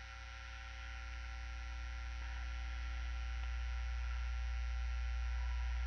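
Steady electrical mains hum that grows slowly louder over the first few seconds, with a faint click about two seconds in.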